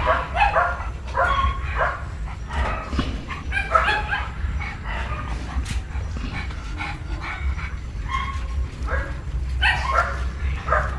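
Dogs yipping and whining, many short high calls overlapping in quick irregular succession.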